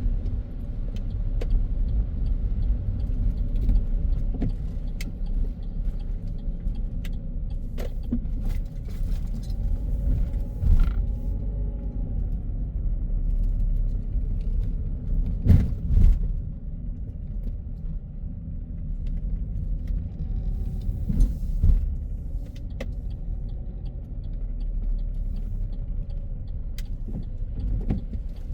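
A car driving on a city road: a steady low road and engine rumble, with a few sharp thumps about halfway through and again a little later.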